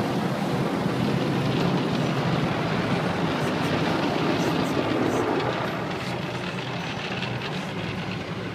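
Automatic car wash machinery running, heard from inside the car: a steady rushing wash noise over a low hum, easing off a little just past halfway.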